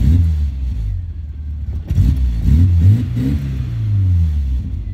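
1999 Mini Cooper's fuel-injected 1.3-litre A-series four-cylinder engine, with a stainless sports exhaust, revved in several short throttle blips from about two seconds in, each time dropping back toward idle rather than hanging at high revs: the sticking-throttle fault is not showing.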